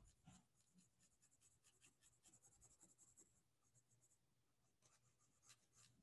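Faint scratching of a colored pencil shading on paper in quick short strokes. The strokes stop about four seconds in, with a few more near the end.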